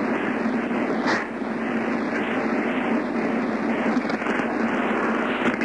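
Steady hiss with a low hum from an open telephone line on a 911 call recording.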